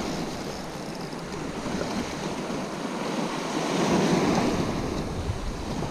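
Small sea waves washing and breaking over a flat rock shelf, with wind on the microphone; the wash swells up about four seconds in.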